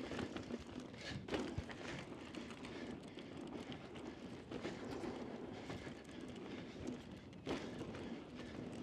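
Mountain bike rolling fast down a dirt trail: steady tyre noise on the dirt, with a few sharp knocks and rattles from the bike over bumps, the clearest about a second and a half in and near the end.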